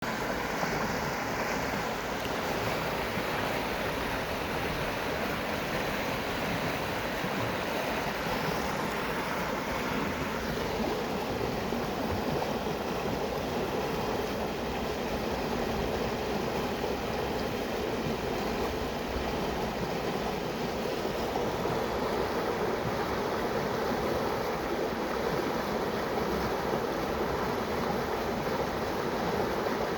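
Steady rushing of moving water, an even, unbroken wash of sound.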